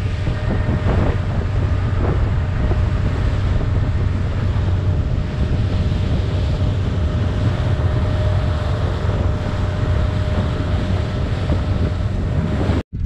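Motorboat running at speed across open water: heavy wind buffeting the microphone over the steady drone of the motor and the rush of the wake.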